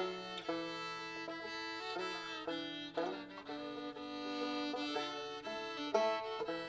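Fiddle and banjo playing a waltz together: long bowed fiddle notes over picked banjo.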